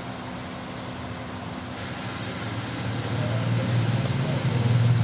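A vehicle engine running with a low steady hum that grows louder over the last few seconds.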